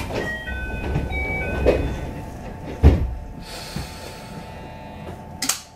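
Running noise of a JR 221 series electric train heard from inside the car: a steady rumble and hum, with a heavy thud nearly three seconds in. A short run of high steady tones sounds in the first two seconds, a hiss in the second half, and a sharp click just before the end.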